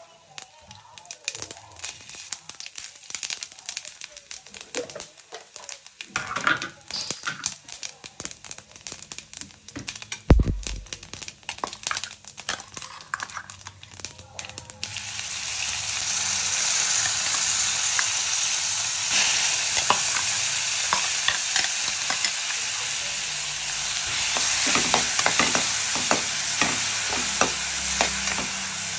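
Mustard seeds crackling and popping in hot oil in a frying pan, with a single loud knock about ten seconds in. At about fifteen seconds chopped vegetables go into the oil and the frying turns to a loud steady sizzle, with a metal spoon scraping the pan as they are stirred.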